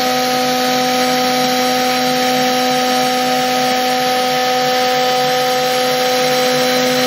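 Spindle of a homemade CNC router running with a steady whine while a very small bit carves a 3D relief into pine on the finishing pass.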